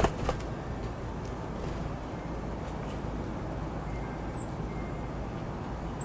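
Small songbirds giving a few very short, high chips, with two sharp knocks at the start as birds work the seed feeder, over a steady low background rumble.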